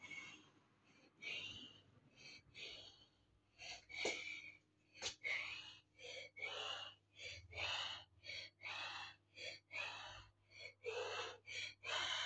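Close, breathy sounds from a person's mouth and nose: an irregular run of short airy puffs, about two a second, faint.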